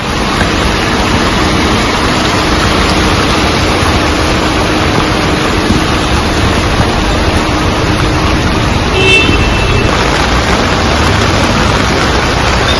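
Heavy rain falling steadily on a waterlogged street, with vehicles passing through the water. A brief pitched tone, like a short toot, sounds about nine seconds in.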